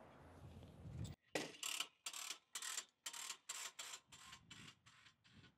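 Spring-loaded grounding-cable reel ratcheting as its coated steel ground wire is pulled out. A faint, even run of clicks, about four or five a second, grows weaker toward the end.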